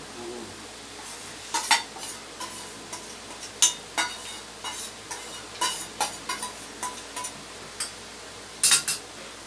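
Stainless steel bowl and plates clinking and scraping as curry is tipped and scraped from a steel bowl onto rice. There are irregular sharp metallic clinks, each with a brief ring, and the loudest pair comes near the end.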